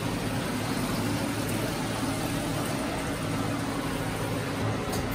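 Steady mechanical hum with a hiss over it, unchanging throughout.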